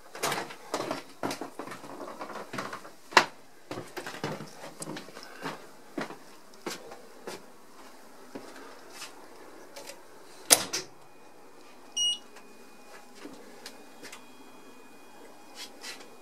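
Footsteps and irregular knocks and clicks while moving through a class 451 electric unit's equipment corridor into the cab, with a loud sharp click about ten seconds in. Shortly after, a short high electronic beep sounds, then faint steady high tones from the cab equipment as the unit is powered up.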